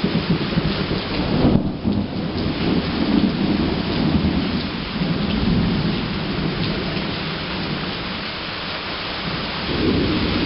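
Heavy rain falling steadily with thunder rumbling low underneath; the rumble eases in the second half and swells again near the end.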